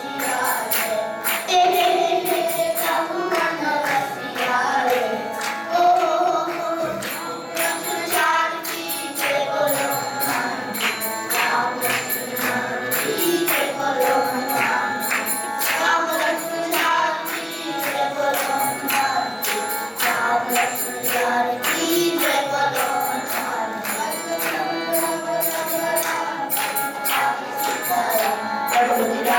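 Indian devotional song: a sung melody with a choir over steady jingling percussion.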